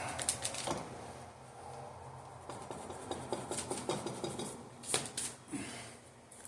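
Small metal engine parts and tools being handled on a workbench: scattered light clicks, taps and scrapes, busiest in two clusters near the start and toward the middle, then tailing off.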